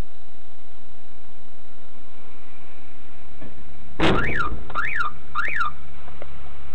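Steady background hiss, then about four seconds in a sudden knock as a car bumps into the stopped car. A car alarm then sets off with three rising-and-falling whoops.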